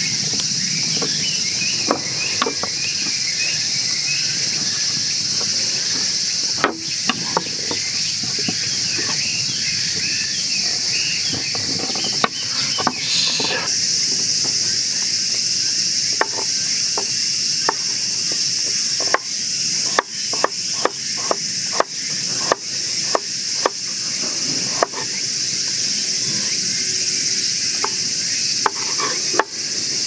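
Kitchen knife slicing garlic cloves on a wooden cutting board: scattered sharp taps, then a run of about two taps a second in the second half, over a steady high-pitched chorus of crickets.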